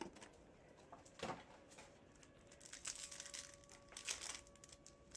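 Faint crinkling and tearing of trading-card pack wrappers being ripped open, with scattered short rustles and clicks as cards are handled.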